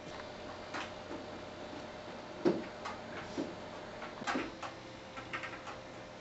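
Scattered small knocks, clicks and rustles of objects being handled and moved about on a classroom desk, the loudest knock about two and a half seconds in, over a faint steady hum.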